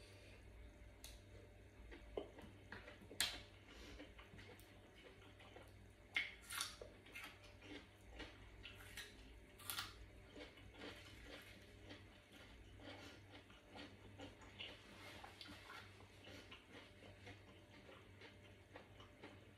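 Close-miked, quiet chewing of a wet, spicy Thai mushroom salad: soft, moist mouth sounds with scattered small clicks and smacks, the sharpest about three seconds in.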